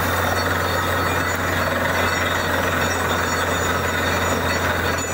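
Borewell drilling rig running steadily, its engine and machinery making a constant loud noise with thin, steady high-pitched tones above it.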